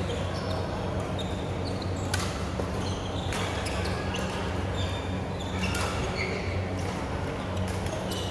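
Badminton rallies on several courts: rackets striking shuttlecocks with sharp cracks a second or so apart, and court shoes squeaking on the floor, over a steady low hum.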